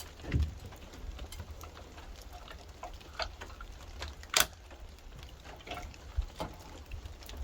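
Scattered knocks and clicks over a low steady rumble: a dull thump about half a second in and a sharp click a little past halfway, the loudest, with a few fainter ones in between.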